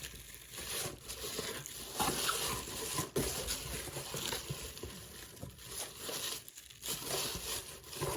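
Rustling and crinkling of packing material and confetti being rummaged through by hand inside a box, with a sharp click about three seconds in.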